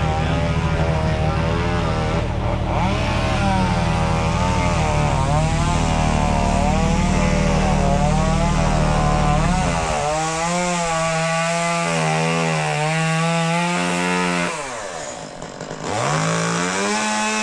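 Chainsaw running and cutting, its pitch wavering under load, easing off briefly about fifteen seconds in and then revving back up. A deeper engine drone runs under it for the first ten seconds, then stops abruptly.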